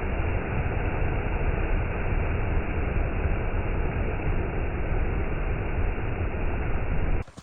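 Whitewater rapids rushing with a steady, dense roar, heavy in the low end. It cuts off suddenly near the end.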